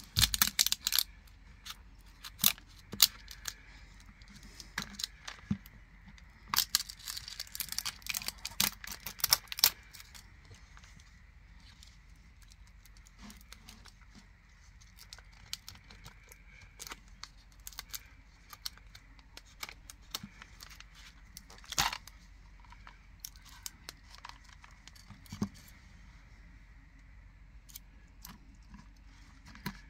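Plastic candy packaging being handled and torn open: bursts of crinkling and tearing, loudest in the first second and again from about six to ten seconds in, with scattered small clicks and rustles in between.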